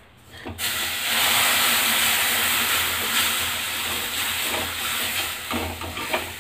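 Milk poured into a hot pan of roasted gram flour, ghee and sugar, setting off a loud hiss as it hits the hot mixture. The hiss starts suddenly about half a second in and eases a little near the end.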